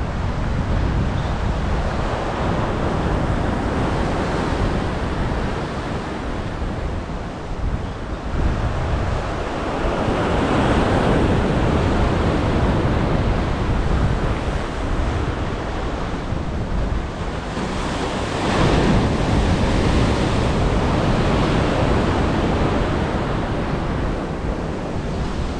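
Ocean surf washing onto a rocky shore, surging louder twice, with wind buffeting the microphone.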